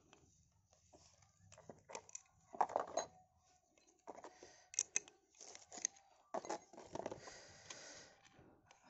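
Light metal clicks and short scrapes as a pin spanner is fitted to a Black & Decker angle grinder's disc lock nut and worked to loosen it.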